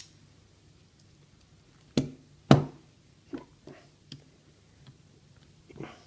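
A few sharp clicks and knocks of small hard parts being handled and set down on a work surface, the two loudest about two seconds in, then several fainter ones.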